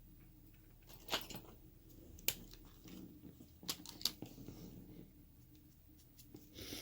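Faint, scattered clicks and light taps of small metal padlock parts (pins, springs, shim) being handled during disassembly, a handful of sharp ticks spread through a few seconds.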